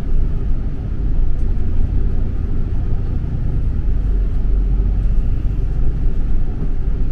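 Steady low rumble of a bus running along a city road, engine and road noise heard from inside the moving bus.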